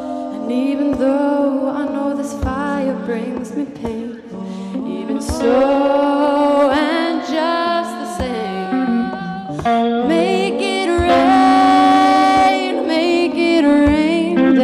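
A woman singing a slow melody live, accompanied by acoustic guitar, holding one long note about eleven seconds in.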